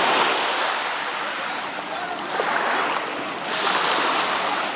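Small surf washing onto a sandy beach, a steady wash that swells and eases, rising twice.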